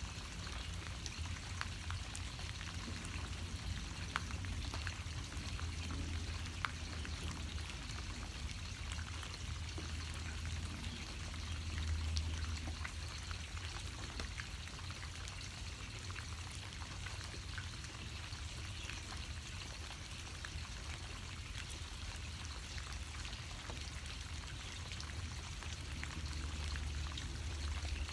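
Steady rain, a continuous patter with many small drops ticking on surfaces. A low rumble runs underneath and swells about twelve seconds in.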